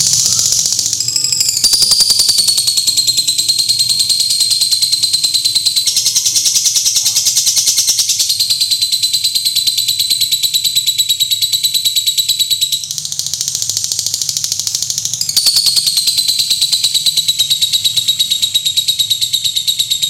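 Lovebird giving a long ngekek: an unbroken, rapid, high-pitched chattering trill that goes on and on. Twice it turns briefly harsher and noisier before settling back into the even trill.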